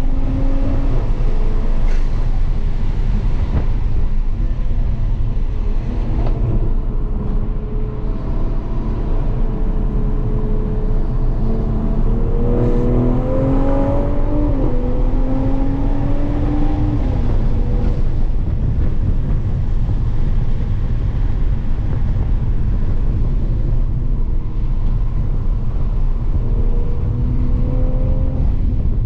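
Toyota GR Supra heard from inside the cabin while driven hard on a track: a heavy low rumble of road and wind noise with the engine note rising and falling as the car accelerates and slows, changing most around the middle as the car takes a corner.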